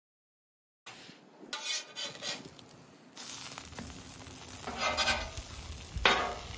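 After about a second of silence, egg-dipped sandwiches sizzle as they fry in butter on a flat top griddle, while a metal spatula scrapes across the griddle's steel surface a few times as it slides under and lifts them.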